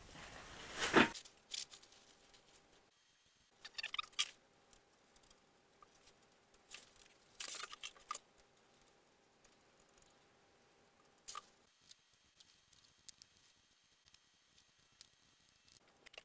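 Plastic bag being handled: a loud rush of breath blown into the bag about a second in, then short bursts of crinkling and rustling as the plastic is wrapped around a glued foam wing half.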